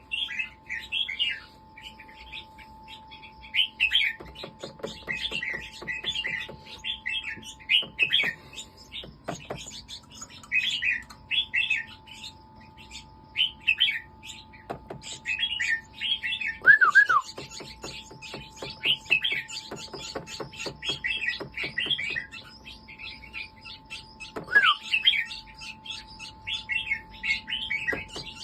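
Red-whiskered bulbul singing short, warbling phrases over and over, one after another with brief pauses between them.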